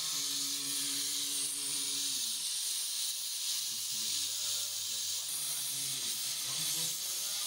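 Gas welding torch hissing steadily as its flame is played over a cast brass horse figure during brass welding.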